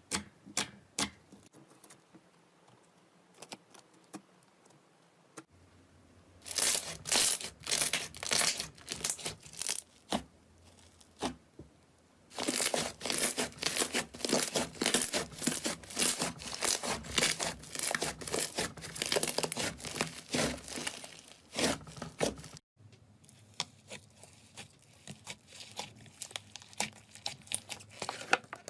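Slime being squeezed and pressed by hand, making dense runs of crackling clicks and pops. The clicking is sparse at first, comes in close, busy runs through the middle, and thins out again near the end.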